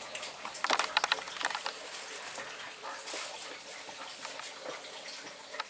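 A quick cluster of clicks and knocks about a second in, as the fallen camera is handled and set back up, then low steady background noise.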